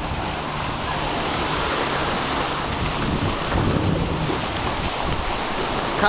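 Waves breaking in the shallows with wind buffeting the microphone: a steady, heavy rush of noise with a low rumble.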